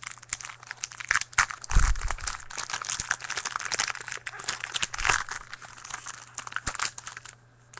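Trading-card pack wrapper crinkling and tearing as it is opened by hand, a dense run of small irregular crackles that stops shortly before the end.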